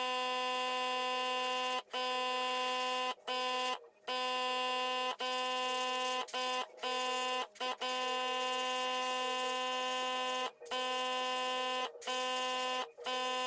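Airbrush compressor humming with a steady buzz and a hiss of air, cutting off and restarting about ten times with short gaps as the airbrush trigger is worked while spraying paint.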